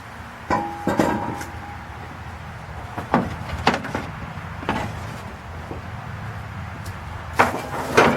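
Hand tools and parts knocking and clanking while a mechanic works in the engine bay: about seven separate sharp knocks, the first with a brief metallic ring, two close together near the end.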